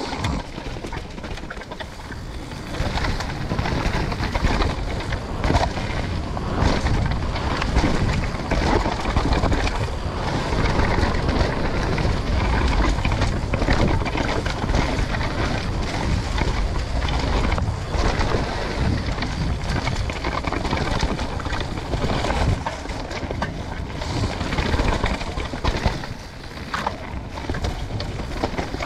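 Downhill mountain bike ridden down a dirt trail, heard from a rider-mounted camera: wind rush on the microphone, tyres on dirt and the bike rattling and knocking over bumps, getting louder a few seconds in.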